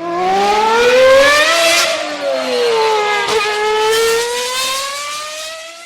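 A car engine revving: the pitch climbs, eases down partway through, then climbs again before fading out.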